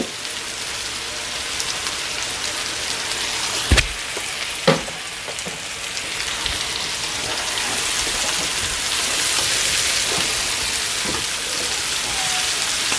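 Potatoes, bell peppers, onions and string beans sizzling steadily in garlic butter in a frying pan. Two sharp knocks, a little under a second apart, come about four seconds in.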